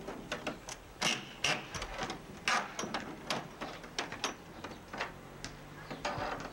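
Hand-tool work at the hinge corner of a wooden gate: irregular clicks and knocks with a few short scraping strokes, the loudest about a second in and again about two and a half seconds in.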